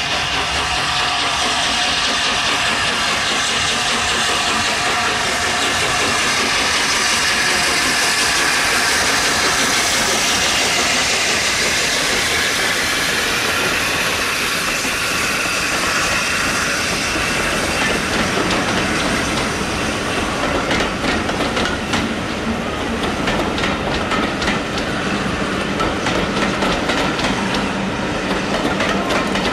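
A steam-hauled passenger train passing close by. The locomotive's sound builds to a peak about a third of the way in, then the coaches roll past with a rapid run of wheel clicks over the rail joints.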